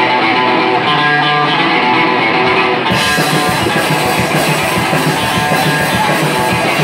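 Live rock band playing an instrumental passage: electric guitar picking out a riff, with drums and cymbals coming in strongly about three seconds in.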